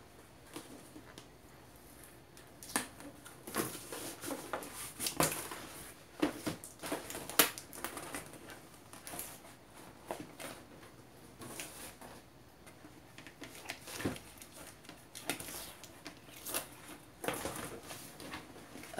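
Packaging being peeled and torn off a boxed microphone: irregular crinkling, rustling and tearing, broken by sharp snaps and taps.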